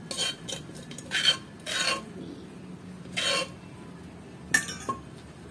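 A metal spoon scraping and clinking against a stainless steel bowl in a series of short, irregular strokes, with a faint metallic ring on some of them.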